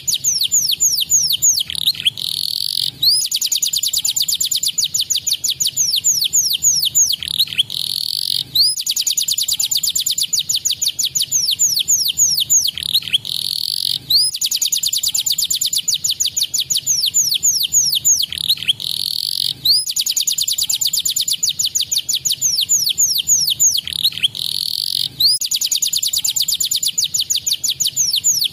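Canary singing continuously in fast, high trills of rapid downward-sweeping notes, with a short break about every five and a half seconds. The same song phrases come round again and again, as a looped stimulation (masteran) recording used to set other canaries singing.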